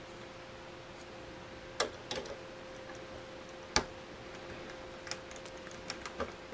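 Plastic LEGO pieces clicking and being handled as a small model is pressed together: a few sharp clicks, the loudest near the middle, then lighter ticks, over a faint steady hum.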